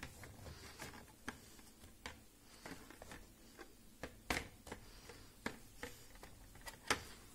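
Faint, scattered clicks and light taps of handling, the sharpest a little after four seconds in and again near the end.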